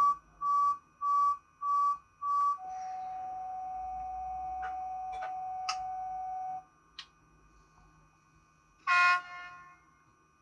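Sound decoder of a Piko BR101 model locomotive playing cab sounds: five short beeps about half a second apart, then a steady warning tone lasting about four seconds with a few clicks over it, then a brief horn blast near the end.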